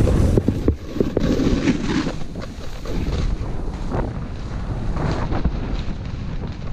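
Wind rumbling on a GoPro's microphone as a snowboard slides and turns through chopped-up powder snow, with a few louder swishes of the board's edge through the snow.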